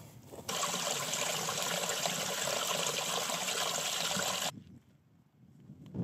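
Mountain river water rushing steadily. It starts suddenly about half a second in and stops suddenly about four and a half seconds in.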